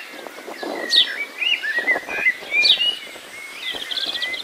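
Small birds chirping and whistling: short rising-and-falling whistles, a few sharp falling notes, and a quick run of high notes near the end.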